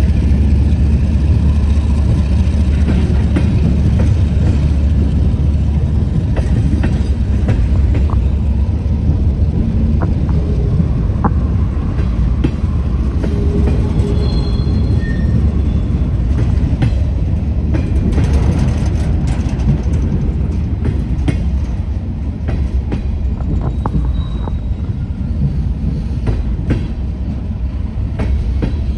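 Railroad cars rolling past: a steady heavy rumble with frequent clicks of wheels over rail joints and a few brief high wheel squeals, about halfway and again later on. The rumble eases slightly near the end.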